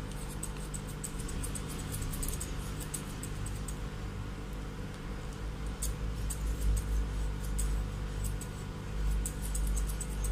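Curved grooming scissors snipping fur at a Pomeranian's ear tip: light, quick clicks in small clusters. A steady low hum runs underneath.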